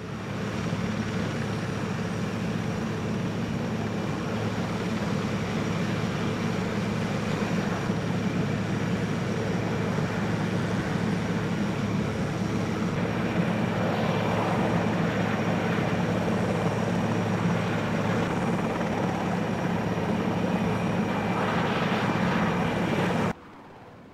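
Military transport helicopter running on the ground with its rotor turning: a steady, loud rotor and turbine noise with a thin high whine over it. It drops off suddenly shortly before the end.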